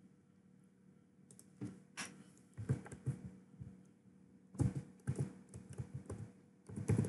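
Computer keyboard typing: short clusters of keystrokes with pauses between them, as a file name is typed.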